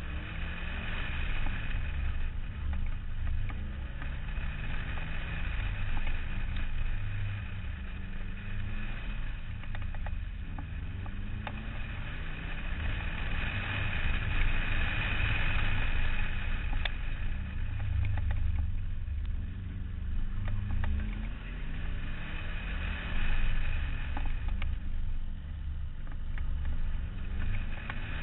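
Subaru WRX rally car's turbocharged flat-four engine heard from outside the car at speed, its revs climbing and dropping several times through gear changes and corners, over a steady rush of wind and road noise.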